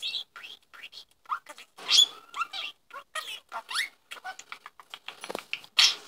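Budgerigar chattering in a rapid string of short chirps, squeaks and clicks, warbling at a toy figure it is fixated on.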